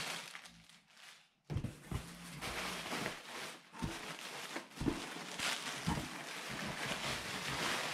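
Plastic wrapping crinkling and rustling as it is handled, starting after a short lull about a second and a half in, with a few soft knocks from the cardboard box.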